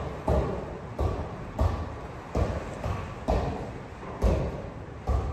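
Football being kept up with repeated kicks, a thud about once a second, each echoing in a large hall.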